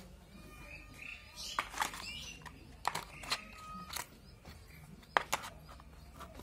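Hard plastic toy car parts clicking and knocking as they are handled and fitted together, a handful of sharp clicks spread through, with birds chirping in the background.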